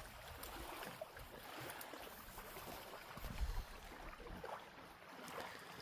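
Faint outdoor ambience: a steady soft hiss with low rumbles, swelling briefly into a low buffet about halfway through.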